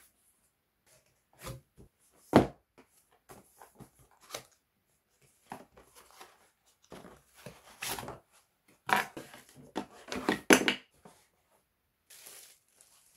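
Cardboard boxes and plastic-and-foam packaging being handled during an unboxing: irregular rustling, scraping and crinkling, with a single sharp knock about two seconds in and a denser spell of crinkling in the last few seconds.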